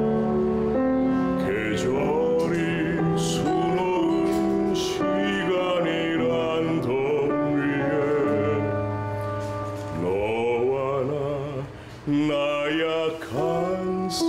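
A man singing in operatic style with wide vibrato, accompanied by piano, with a brief break about twelve seconds in.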